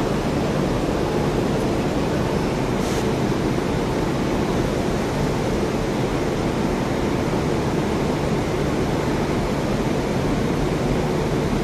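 WAP-7 electric locomotive running at close range, a steady, even rushing hum with no wheel clatter, and a brief hiss about three seconds in.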